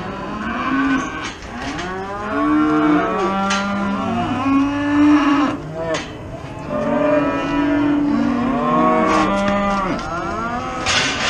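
Several cattle mooing over one another, long calls that rise and fall in pitch, coming in two main bouts.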